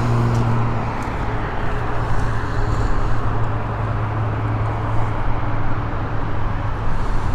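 Steady freeway traffic noise from an interstate, with a low steady hum running under it.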